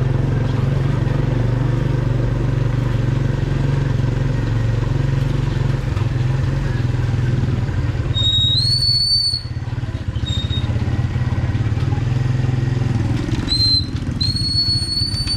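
Motorcycle-and-sidecar tricycle's engine running steadily as it rides along. A high whistling tone rises and holds for about a second, twice: once about eight seconds in and again near the end.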